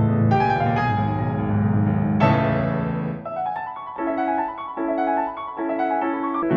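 Background piano music: a chord struck about two seconds in, then a run of lighter repeated notes.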